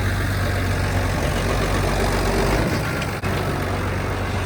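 Farm tractor engine running steadily with a low hum, broken by a brief dropout about three seconds in.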